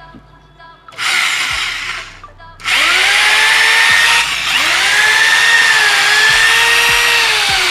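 Kangaro 2-20 rotary hammer drill's electric motor running free in plain drilling mode, hammer action off. A short burst comes about a second in, then a longer run with a whine that rises as it spins up and starts winding down near the end.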